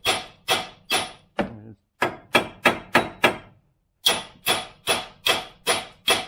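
Hammer blows on metal, about fifteen sharp strikes with a short ring, in three quick runs of four to six with brief pauses between. They come during a front CV shaft change and are aimed at a stuck part.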